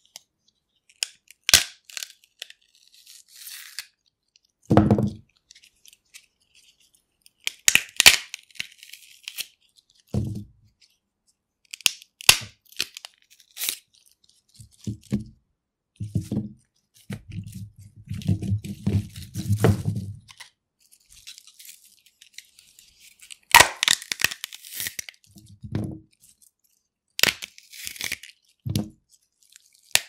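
Fresh celery stalks snapped and torn apart by hand: a series of crisp snaps a few seconds apart, with stringy tearing and crunching between them, including a longer stretch of low crunching just past the middle.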